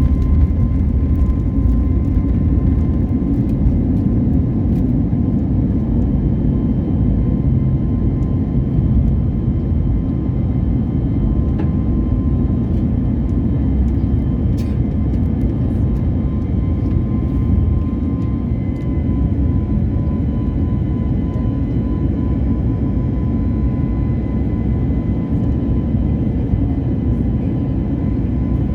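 Airliner's jet engines and airflow as a steady low rumble from inside the cabin during the take-off and climb, with a faint steady whine on top.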